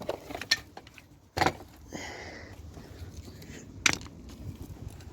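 Scattered knocks and clicks of scrap dishwasher parts being handled during dismantling. A louder knock comes about a second and a half in and a sharp click near four seconds, over a faint steady noise.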